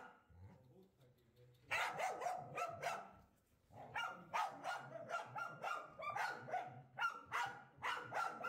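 Dogs barking in alarm at a cobra. A quick run of barks comes about two seconds in, then a short pause, then steady barking at about three barks a second.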